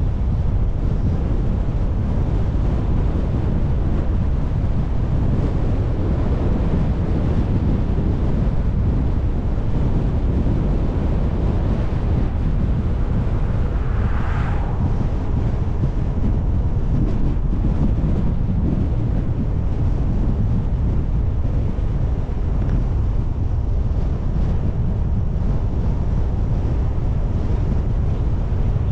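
A car driving along, with a steady low rumble of wind buffeting the microphone over the road noise. A brief higher-pitched sound comes about halfway through.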